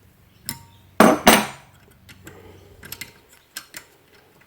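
Metal clanks: two loud, sharp knocks with a short ring about a second in, then lighter clicks and clinks. These are tools and gas strut parts being handled while the Loctited end fitting is unscrewed from the strut ram in a vise.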